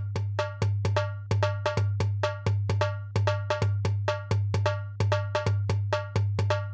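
Background music: a steady rhythm of quick, sharp percussion hits with a bright clacking tone over a continuous deep bass tone.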